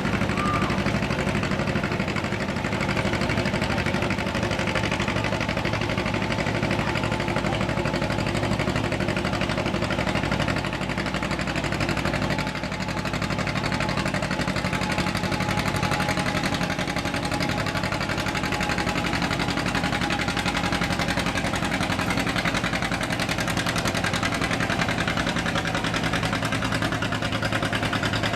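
Farm tractor engine running at a steady speed, a constant low drone with no revving.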